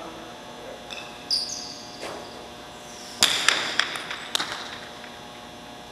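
Jai alai pelota cracking against the fronton wall and cesta: a loud sharp hit about three seconds in, followed by several quicker clicks. A short high squeak comes about a second in.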